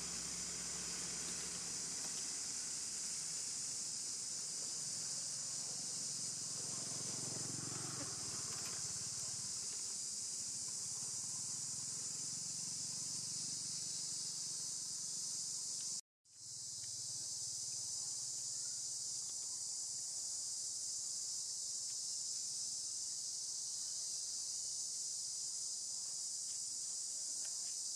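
A steady, high-pitched chorus of insects, dropping to silence for a moment about halfway through and then coming straight back.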